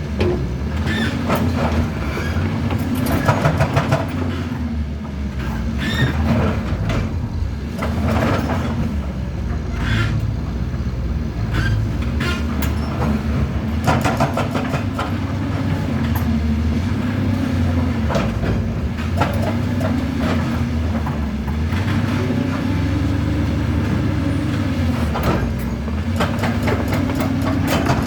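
Doosan DX225 excavator's diesel engine running under working load. Its pitch rises and falls every few seconds as the hydraulics are worked, with scattered knocks and clanks over it.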